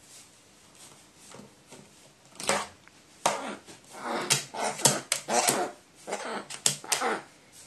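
Pet crow giving a rapid run of short, whiny cries, starting about two and a half seconds in, typical of a hand-raised crow begging or fussing.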